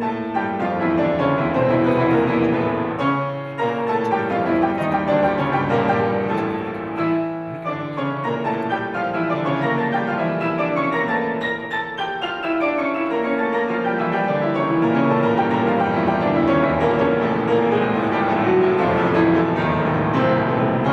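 Solo classical piano on a concert grand: dense, fast passagework with runs sweeping down and up the keyboard.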